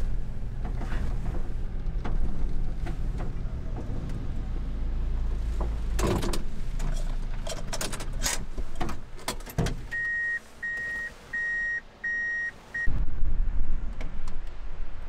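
Kei truck engine running, heard inside the cab, with a cluster of clicks and knocks as the truck is parked and the engine stops. Then five short, evenly pitched electronic warning beeps, and wind on the microphone after a cut to outdoors near the end.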